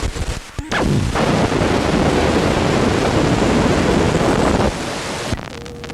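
A loud, dense rumbling noise that dips briefly about half a second in, then carries on and drops away about four and a half seconds in. A short steady tone starts near the end.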